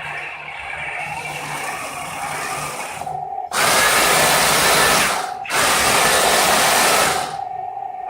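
Heng Long 1/16 M41A3 Walker Bulldog RC tank's electric drive motors and gearboxes whirring loudly in two runs of about two seconds each, the first starting about three and a half seconds in. Before and after the runs there is a quieter steady hum.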